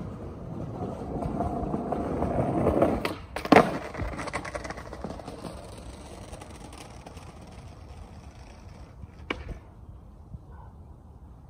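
Skateboard wheels rolling over rough, pebbly asphalt, the rumble growing louder as the board comes closer, with a sharp loud clack about three and a half seconds in. The rumble then fades as it rolls away, with one short click near the end.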